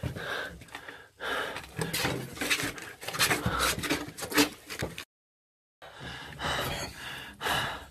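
A person breathing hard in short gasps, mixed with scuffling noises of movement in a small room. The sound cuts out completely for under a second about five seconds in.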